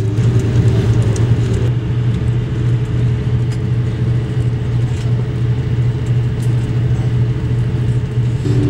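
Airbus A330-200 cabin noise while taxiing: a steady, loud low drone and rumble from the jet engines at low thrust, with a constant hum, heard from inside the cabin.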